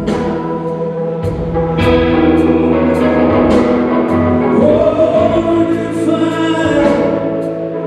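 Live band playing a slow ballad, with backing singers holding sustained harmonies over the band and short, regularly spaced high strokes in time with the beat. A lead voice comes in near the end.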